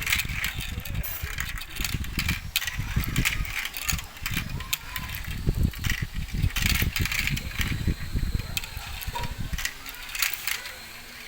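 Marbles rolling and clattering down a marble run track: a continuous low rolling rumble with many sharp clicks of impacts.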